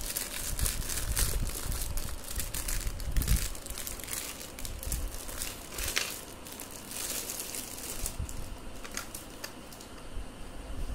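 Clear plastic packaging film crinkling and rustling as it is pulled off a toy magic slate. The crinkling is busiest for the first eight seconds or so and thins out near the end.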